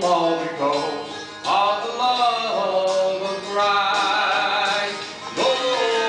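Southern gospel vocal group singing with instrumental accompaniment, holding long sung notes.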